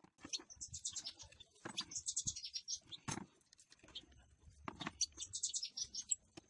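Small bird chirping in quick runs of short high chirps, three runs in all, with a few sharp knocks in between.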